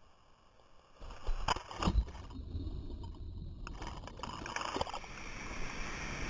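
Water splashing and sloshing around a stand-up paddleboard as it is paddled through choppy water, starting about a second in, with two louder splashes soon after.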